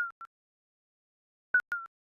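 Digital countdown-timer beeps: short electronic double beeps, a quick blip and then a slightly longer tone that dips a little in pitch. One pair comes at the start and another about a second and a half in, with silence between.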